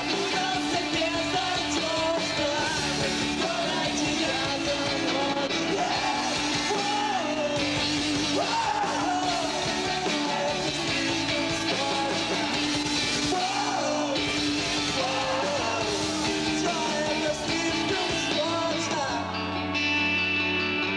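An emo rock band playing live, with sung and shouted vocals over distorted guitars, bass and drums. About nineteen seconds in the drums stop and a guitar chord rings on.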